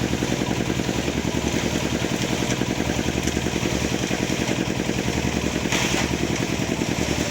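A small engine running steadily with an even, fast pulse. A brief hiss comes about six seconds in.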